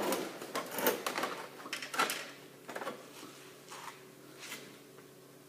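Irregular clicks and knocks of printer parts being handled and pried at during disassembly, thinning out about three seconds in.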